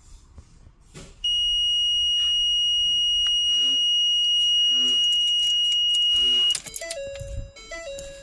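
A loud, steady, high-pitched electronic beep held for about five seconds, then a short run of lower stepped tones like a little tune near the end.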